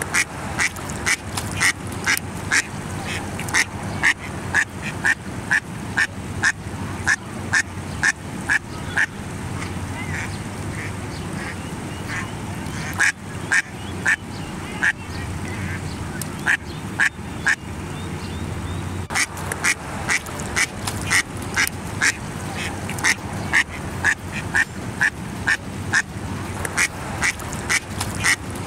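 Female mallard quacking over and over in long runs, about one and a half quacks a second, with a couple of short pauses. It is the hen's alarm as a turtle attacks her duckling.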